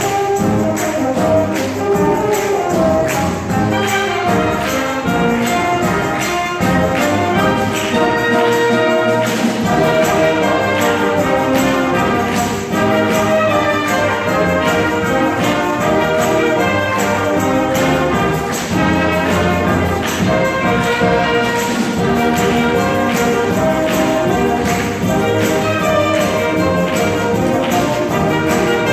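School wind band playing, brass instruments such as trumpets and trombones carrying the tune over a steady percussion beat.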